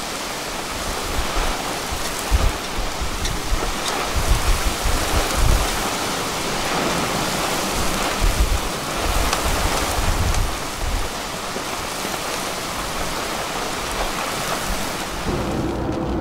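Heavy wind-driven thunderstorm rain pouring onto pavement: a dense, steady hiss, with gusts of wind buffeting the microphone as low rumbles. Near the end it cuts to the steady hum of a car driving.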